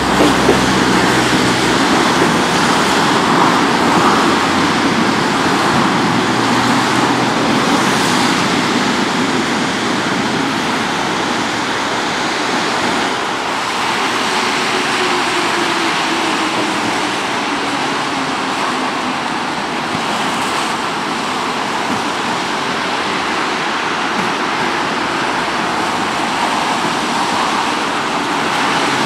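Kyiv metro trains at stations: a steady rushing rumble of wheels and running gear, with a motor whine falling in pitch about halfway through as a train slows.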